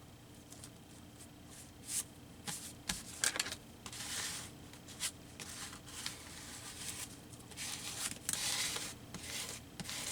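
Paper handling: a paper cut-out rustling and rubbing as it is laid onto a book page, with small ticks and swishing strokes starting about two seconds in.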